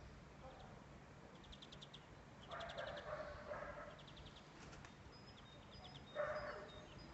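Animal calls: a louder call lasting about a second midway and a short, sharp one near the end, over repeated high, rapid bird trills.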